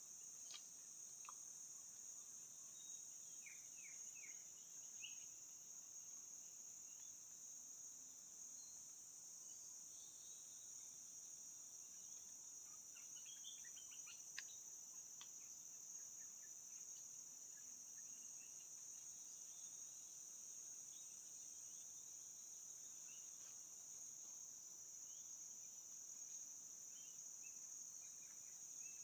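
Faint, steady, high-pitched drone of insects, with a few short chirps and clicks scattered through it.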